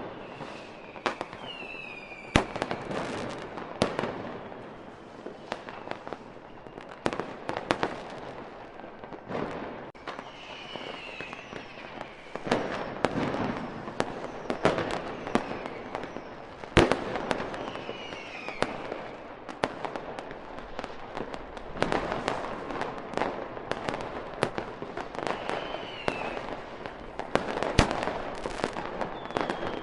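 Fireworks display: a rapid run of sharp bangs and crackling bursts, the loudest bang about halfway through, with several high whistles gliding in pitch in between.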